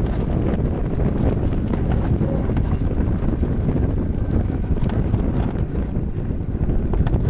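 Wind rushing over the microphone, with the low rumble of an alpine coaster sled's wheels running fast along its steel tube track. A few faint clicks sit on top.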